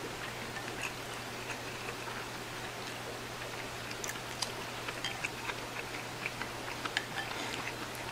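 Chopsticks stirring and lifting instant ramen noodles in a ceramic bowl: scattered light clicks and taps, more of them in the second half, over a steady low hum.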